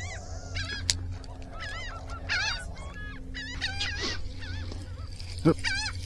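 A flock of seabirds calling over the water, many wavering calls overlapping one another, with a sharp knock about five and a half seconds in.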